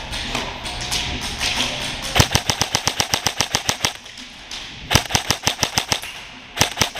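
Airsoft electric rifle firing on full auto: three rapid bursts of sharp shots at about ten a second, the first and longest about two seconds in, the last starting near the end.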